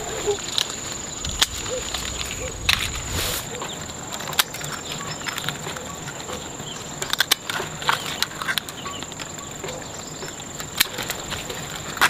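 Small pruning scissors snipping roselle stems: irregular sharp snips about every second or two, a cluster of them a little past the middle, with the rustle of leafy branches being handled. A steady high tone sits behind.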